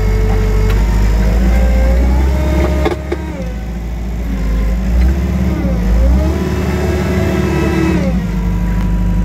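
Wacker Neuson 901s skid steer running at low throttle, heard from inside the cab: a steady engine hum with a whine that rises and falls several times as the machine drives and turns.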